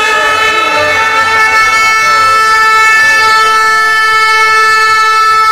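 A horn blown in one long, steady, loud note, with shouting voices faintly beneath.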